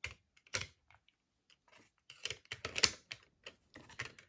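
Light plastic clicks and taps of acrylic enclosure pieces and wires being handled, irregular, with a bunch of them about two to three seconds in.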